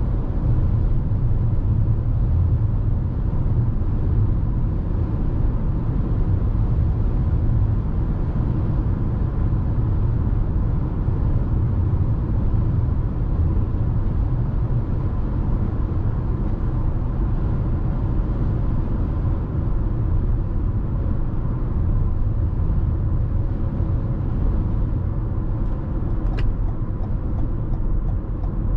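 Steady low road and tyre rumble heard inside the cabin of a 2021 Toyota RAV4 SUV on the move, with a faint steady whine above it. A few faint clicks come near the end.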